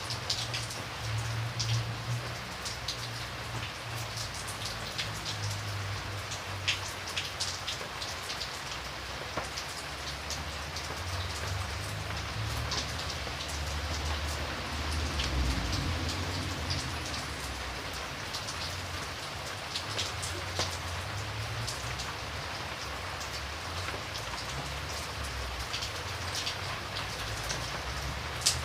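Steady rain falling, with single drops now and then ticking sharply on a hard surface, over a low rumble.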